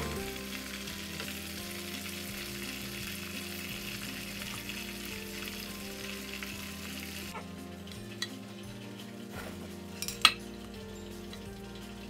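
Breaded chicken breasts sizzling in a pan of hot frying oil, a steady hiss that eases off about seven seconds in. A few sharp clicks follow, the loudest about ten seconds in, as metal tongs set the pieces into a glass dish.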